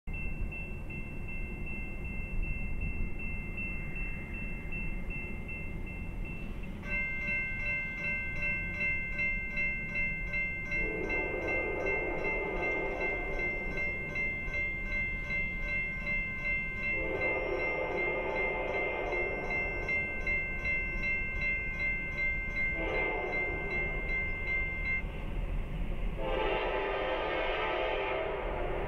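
An approaching Norfolk Southern GE locomotive sounds its Nathan K5LA air horn in the long-long-short-long grade-crossing signal: two long blasts, a short one, then a long one near the end. A grade-crossing warning bell rings rapidly from about seven seconds in, over a low rumble.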